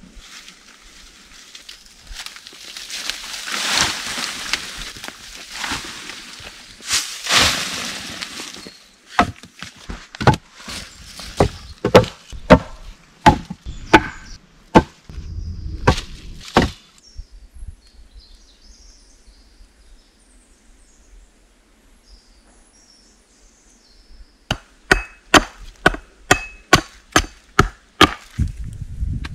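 Wood being chopped: after a few seconds of rustling noise, a run of about a dozen sharp blows, a pause of several seconds, then a quicker run of about a dozen more.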